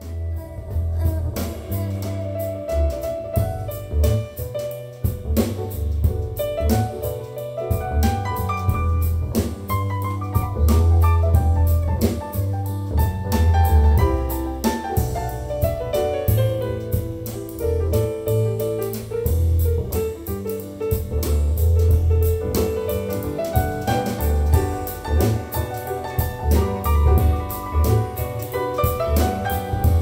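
Smooth jazz with piano, drum kit and bass, played through JBL Synthesis 1400 Array BG loudspeakers and picked up by a stereo microphone in the listening room. The bass line is strong and steady.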